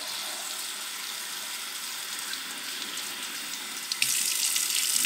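Water from a tap running steadily into an empty plant pot, getting louder about four seconds in.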